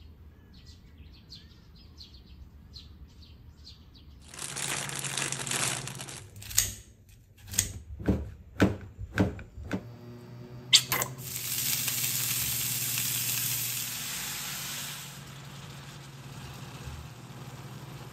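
Small birds chirping faintly. Then kitchen sounds: a couple of seconds of rushing noise, a quick run of about eight sharp knocks and clatters, and a click followed by a steady hiss that lasts about four seconds, as a nonstick frying pan is readied with oil.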